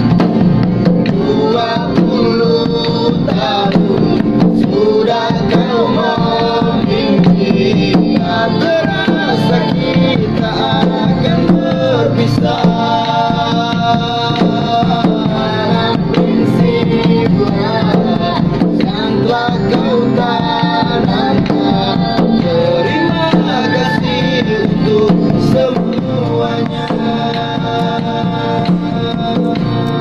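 An Indonesian song sung over acoustic guitar and hand drum.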